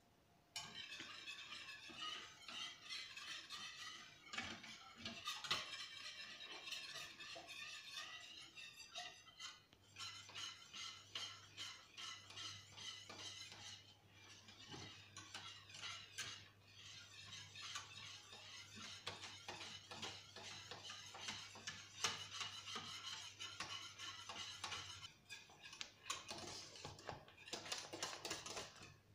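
Wire whisk beating quickly against a stainless steel saucepan, a fast, steady rattle and scrape with a few short pauses, as an orange cream of juice, eggs and cornflour cooks and thickens on the hob.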